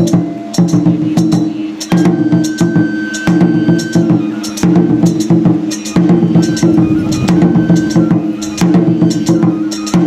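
Traditional Japanese shrine dance music: rapid drum and wood-like strikes over a steady low drone that comes in repeating phrases, with a short high flute note now and then.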